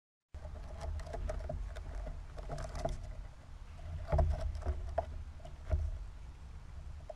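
A squirrel climbing onto a seed-filled feeder tray, its claws scrabbling with scattered clicks and a few knocks, the loudest about four seconds in, over a low rumble.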